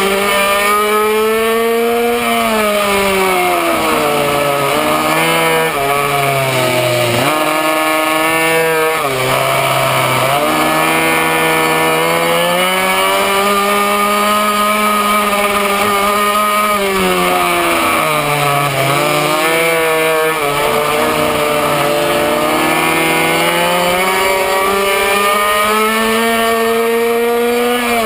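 Minimoto's small two-stroke engine at racing speed, heard from on board. It holds high revs on the straights, and its pitch drops and climbs back several times as the bike slows for corners: around five seconds in, again from about seven to ten seconds, and from about seventeen to twenty seconds.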